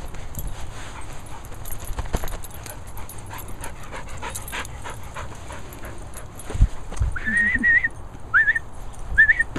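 Sealyham terrier whining: one wavering whine about seven seconds in, then two short rising whines. Before it come light scattered ticks and a dull thump, the loudest single sound.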